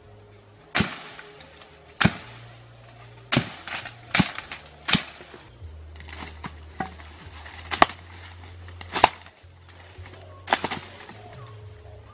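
Repeated sharp whacks of a swung stick striking in the undergrowth, about one a second, with a few quicker doubles. A low background music bed runs underneath.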